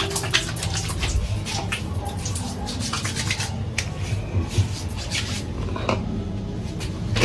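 Hands splashing water onto a face and rubbing it, a run of short wet splashes and rubs, over a steady low hum.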